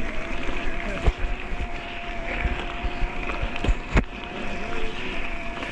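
Specialized Levo e-bike's mid-drive motor whining steadily as it is ridden along a trail, over tyre rumble and wind on the microphone. Sharp knocks of the bike over rough ground come about a second in and again near four seconds.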